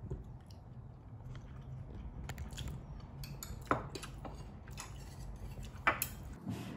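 A spoon and chopsticks scraping and clicking against a frying pan and a small bowl as fried rice is served, with two sharper clicks near the middle and again near the end. A low steady hum runs underneath and drops out near the end.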